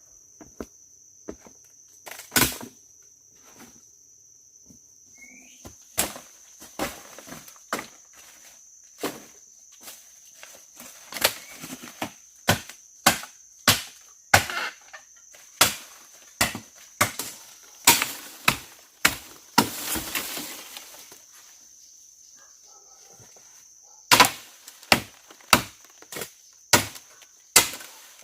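Repeated chopping strokes on wood, sharp single blows about one or two a second, with a few seconds' pause near the end before they resume faster. A steady high insect drone runs underneath.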